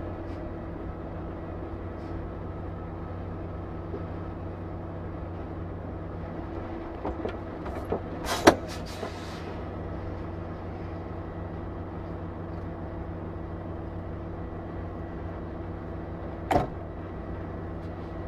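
Steady engine hum of a running vehicle, with a few clicks and a sharp knock about eight seconds in, and another knock near the end.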